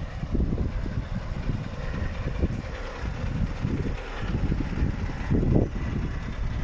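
Wind buffeting the phone's microphone in uneven low gusts, the strongest gust about five and a half seconds in.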